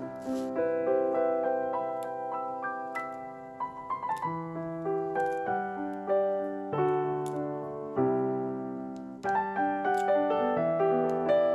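Background piano music playing a melody over chords.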